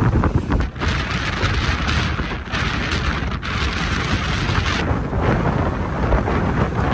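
Strong wind buffeting the microphone with a constant low rumble, and a louder hissing rush of a gust from about a second in until near five seconds.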